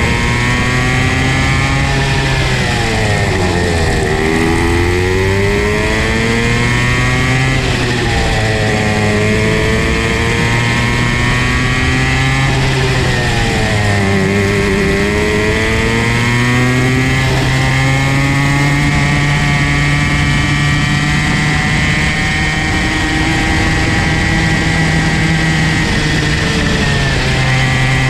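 Comer C50 two-stroke 50cc kart engine running hard on track. Its pitch falls as the kart slows, deepest about four and fourteen seconds in, then climbs again as it accelerates.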